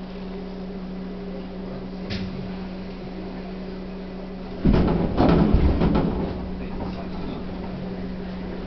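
Chichibu Railway 1000 series electric train standing at a platform with a steady low electrical hum. About halfway through, a sudden loud clatter and rattling breaks in for a second or two as the train jolts and starts to pull away.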